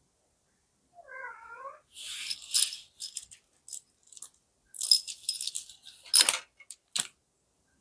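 A cat meows once, about a second in. Then packaging rustles and small parts click as they are handled, with two sharp clicks near the end.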